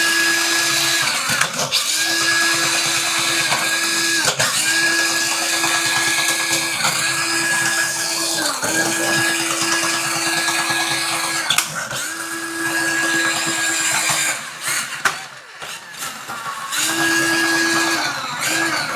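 Ryobi cordless drain auger motor running steadily while its cable is fed into a clogged shower drain. The pitch dips briefly every two seconds or so. It stops about three-quarters of the way through, then runs again briefly near the end.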